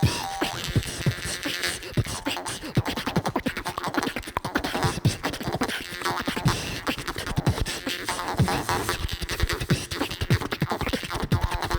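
Dance-style music with a heavy electronic drum beat and no sung words.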